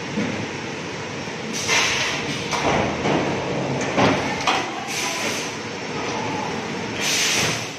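Large slide-way high-frequency (RF) plastic welding machine working: a steady hum with several short hissing, clattering bursts and a couple of sharp knocks as its press and sliding tables move.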